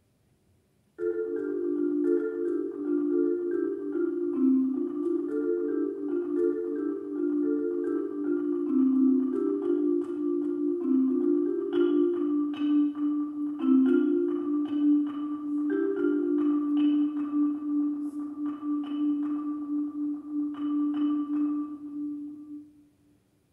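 Concert marimba played with mallets: a passage of quick, ringing struck notes in the middle register begins about a second in. It settles into a long roll on one low note with sharper accented strikes over it, and stops shortly before the end.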